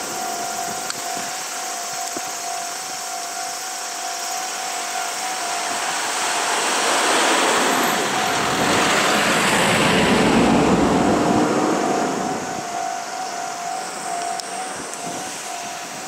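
Level-crossing alarm ringing its repeating electronic tone while a Meitetsu 3150 and 3300 series electric train passes at speed. The train's running noise builds from about six seconds in, is loudest around ten seconds, and fades away after about twelve seconds.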